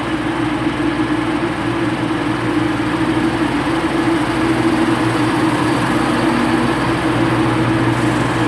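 Class 170 Turbostar diesel multiple unit's underfloor engines idling steadily at the platform: an even, unchanging hum.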